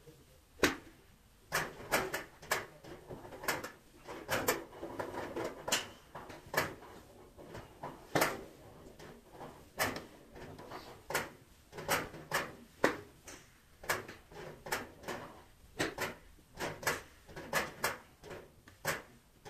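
Golf clubs striking balls at a driving range: a quick, irregular run of about thirty sharp clicks, some much louder than others, the loudest about a second in. The playback is sped up.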